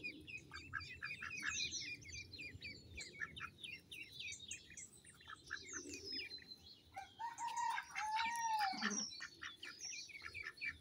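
Indian Runner ducklings peeping, rapid high-pitched peeps that go on throughout. About seven seconds in, a longer, lower call arches up and falls away over a second or so.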